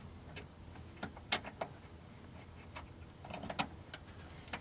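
Scattered light clicks and taps of car door parts and tools being handled during reassembly: a few separate sharp clicks about a second in, a short cluster around three and a half seconds, and one more near the end.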